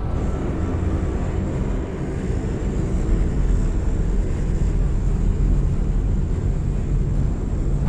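Steady low drone of a four-engine turboprop plane in flight, with a thin high whine held over it.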